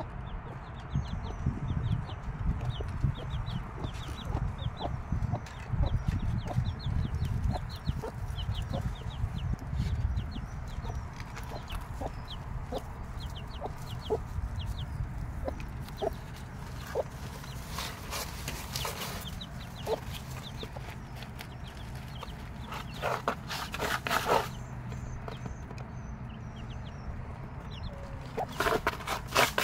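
Six-day-old chicks peeping in rapid, high, falling chirps while the mother hen clucks about once a second. A few brief scratchy bursts stand out later on.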